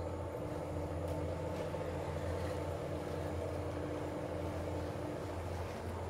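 Diesel train engine running with a steady, even drone as the train approaches.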